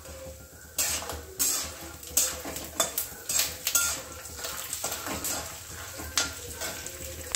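Metal spatula scraping and knocking against a kadhai in repeated, irregular strokes, stirring peanuts, lentils and curry leaves frying in ghee, with a frying sizzle underneath.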